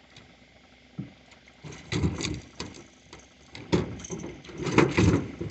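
Irregular knocks and clattering thumps of gear being handled in a boat, with a single knock about a second in and louder clusters about two seconds in and near the end.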